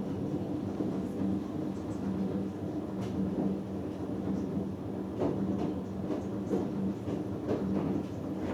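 Hoover Dynamic Next front-loading washing machine in the wash phase of a cotton cycle: a steady motor hum as the drum turns, with scattered light clicks and knocks from the load in the drum.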